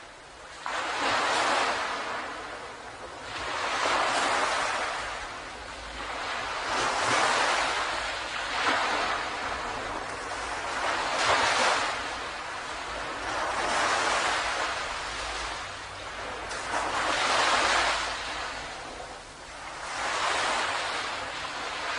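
Ocean waves breaking and washing up on a beach, the surf swelling and falling away about every three seconds.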